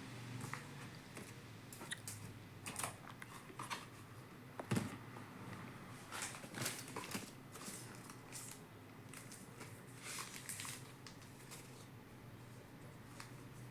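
Handling a phone's cardboard box and packaging: scattered clicks, rustles and crinkles, with one sharper knock a little under five seconds in.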